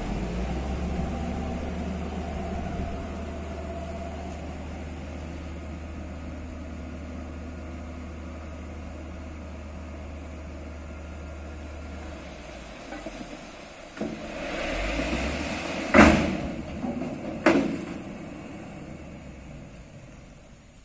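Diesel dump truck running with a steady low drone while its tipping body is raised. Near the end comes a rushing noise and two loud bangs as the body is tipped and the load is dumped.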